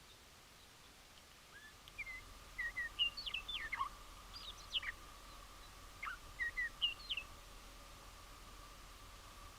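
Small songbirds calling: clusters of short chirps and quick down-slurred notes for about five seconds, starting about two seconds in, over a faint steady tone.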